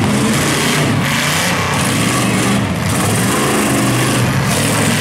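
Several demolition derby pickup truck engines revving and running hard, their pitches rising and falling as the trucks maneuver.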